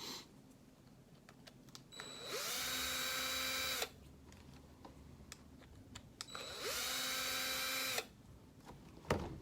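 Power drill backing out small screws from an RC truck's axle knuckle: two runs of about a second and a half, each spinning up quickly and then holding a steady whine. A sharp click near the end.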